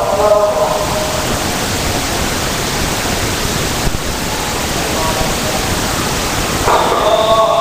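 A steady, even hiss of noise. The tail of a man's voice fades out in the first second, and his voice comes back near the end.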